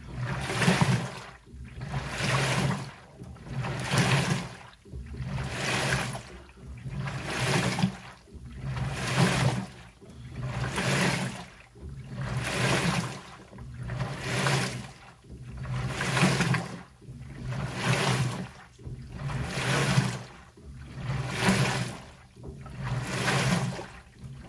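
LG Turbodrum direct-drive top-loading washer agitating a load in water: a regular swish of sloshing water with the motor's low hum under each stroke, about once every 1.7 seconds.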